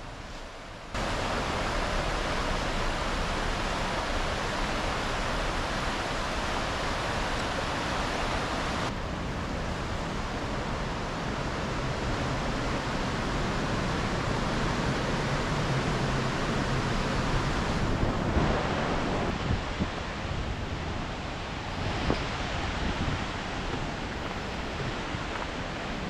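Rushing creek water tumbling over rocks: a steady roar of whitewater rapids. It jumps up abruptly about a second in and changes level a few times, with a few brief bumps near the end.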